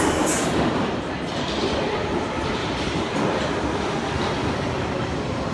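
London Underground tube train running into a station platform: a steady rumble of wheels on the rails.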